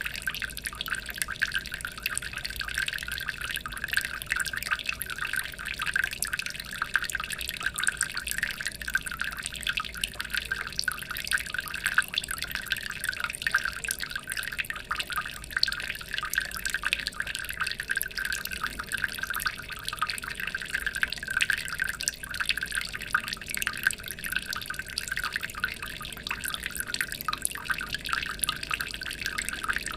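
Water trickling and splashing steadily into a fish aquarium, a dense, even patter of small drips and splashes.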